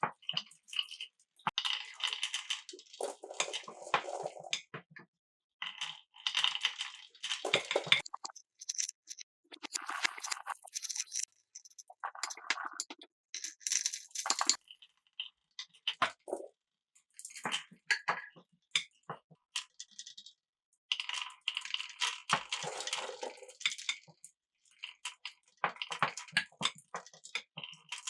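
Marbles rolling and clattering through a wooden marble run and plastic pipes: bursts of rattling and quick clicks with short quiet gaps between them.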